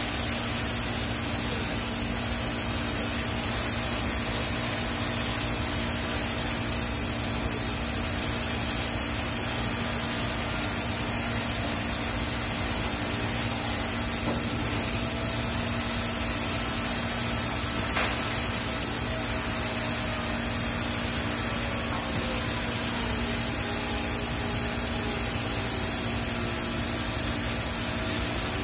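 TIG welding arc on a stainless steel pipe root pass: a steady hiss with an even hum under it, and a single click a little past halfway.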